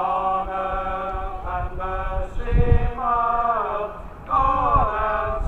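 A man's voice calling out in long, held, chant-like notes, some falling in pitch at the end, with wind rumbling on the microphone.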